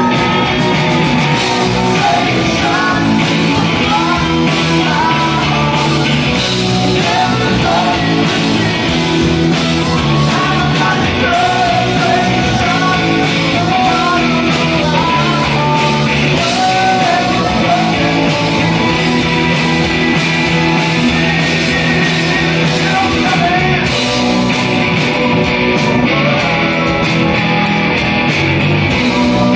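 Live rock band playing: a male singer's voice over distorted electric guitars, bass and drums. Near the end the singing stops and the electric guitar carries on over a steady cymbal beat.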